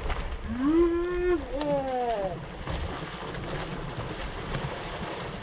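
A person's long, drawn-out call, rising and then held for about a second, followed at once by a shorter falling call. Underneath is a steady low rumble of wind and water sloshing against the boat.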